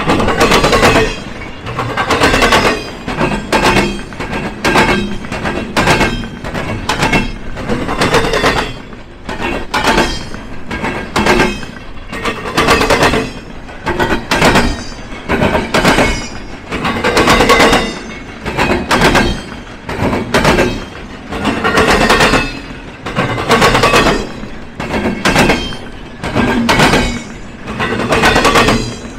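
Freight train wheels pounding across a railroad diamond crossing: clusters of loud metallic bangs about every two seconds as each car's wheels hit the crossing, over a steady rolling rumble.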